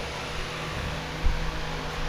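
LS V8 engine turning over: a steady mechanical hum with a low thump about a second in.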